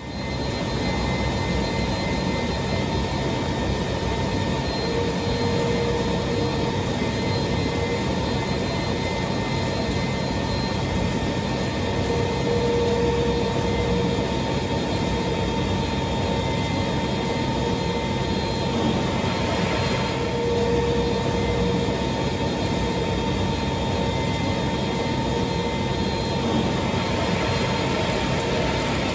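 A Haas ST-40 CNC turning centre runs with a steady mechanical hum and a constant high whine. A slightly stronger tone swells now and then.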